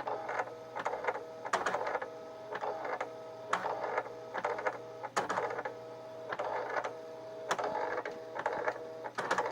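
Commodore MPS 1270 inkjet printer printing slowly: its carriage runs in repeated passes with a steady whirr, broken by sharp clicks every one to two seconds.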